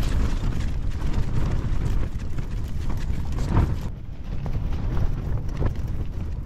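Fabric of a Fjallraven Abisko Lite 2 tent flapping and slapping in strong wind, with wind rumbling against the microphone.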